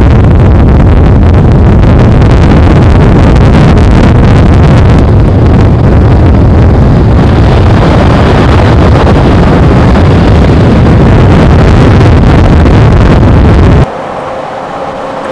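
Loud, rough wind buffeting the microphone close under a rope tornado. About fourteen seconds in it cuts abruptly to a much quieter, steady hum of a vehicle driving.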